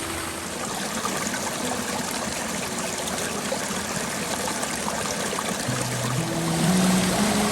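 Waterfalls pouring steadily into a koi pond: a continuous rush and splash of falling water.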